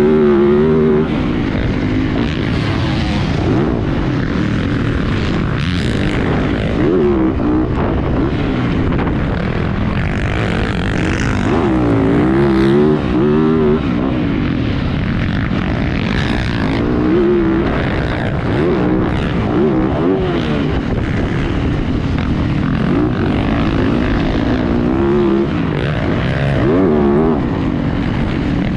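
Motocross dirt bike engine being ridden hard, its revs repeatedly climbing and dropping as the rider works the throttle and gears around the track.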